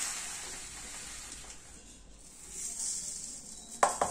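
Granulated sugar pouring from a plastic measuring cup onto cut lemon pieces in a steel bowl, a steady hiss that fades and comes back briefly. Two sharp knocks near the end.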